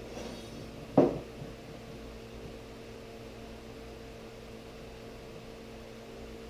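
A single sharp knock about a second in, over a steady electrical hum in the workshop.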